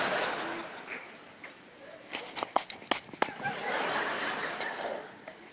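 Audience laughing in a hall, in two waves: one fading about a second in and another swelling near the four-second mark, with a few sharp clicks in between.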